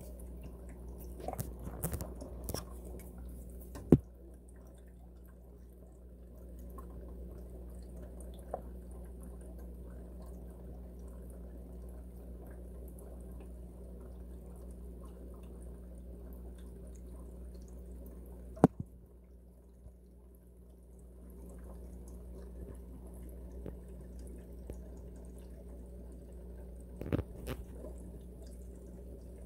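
Steady low hum with faint dripping water, broken by two sharp clicks, one about four seconds in and one a little past the middle, and small knocks near the start and near the end.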